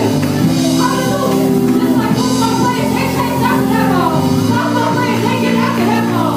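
Live church worship music: a worship team singing over sustained band chords and bass, with bright shaken percussion coming and going.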